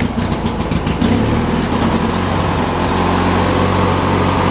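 Riding lawn mower engine just started cold on choke, running unevenly for about the first second, then settling into a steady run.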